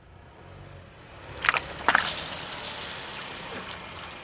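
Water-filled long balloons bursting under a car's tyre: two sharp pops about half a second apart, then water spraying and splashing across the asphalt, over the low rumble of the car rolling in.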